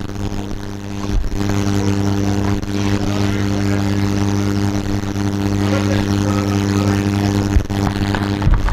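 Steady electrical hum from workbench equipment, a buzz of evenly stacked tones that grows louder about a second in and then holds, with a few faint clicks.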